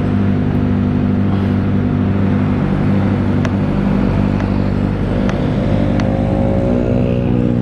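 Kawasaki ZX25R's 250 cc inline-four, breathing through an Austin Racing aftermarket silencer, running steadily at low revs; about five seconds in its pitch begins to rise as it revs up.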